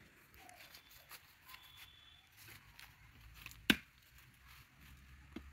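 A machete chopping into bamboo: one sharp chop about two-thirds of the way in, and a fainter knock near the end.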